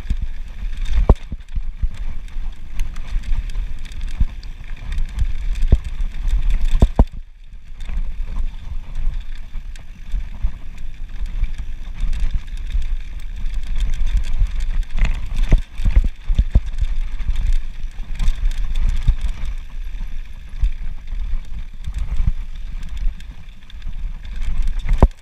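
Mountain bike descending a rocky dirt trail: tyres crunching over gravel and stones, with frequent knocks and rattles from the bike and a low wind rumble on the microphone. The clatter drops off briefly about seven seconds in.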